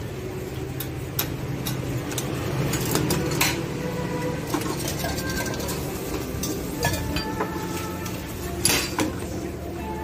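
Metal cooking utensils clinking and tapping against a flat-top steel griddle in scattered strikes, the loudest near the end, over a steady low hum.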